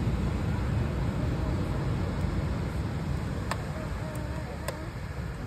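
Steady outdoor rumble of wind buffeting the phone's microphone, with surf from the sea, plus a few faint clicks between about three and a half and five seconds in.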